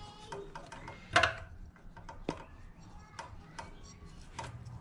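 Aluminium valve cover being handled and set against a Predator 212 engine's cylinder head: scattered metal clicks and knocks, the loudest about a second in.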